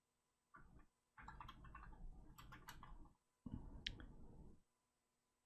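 Near silence with faint, irregular clicking from a computer keyboard and mouse, in a few short clusters.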